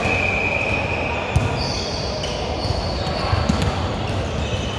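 Indoor volleyball play: a sharp ball strike a little over a second in, over a steady din of voices in the gym, with a couple of drawn-out high squeaks or calls.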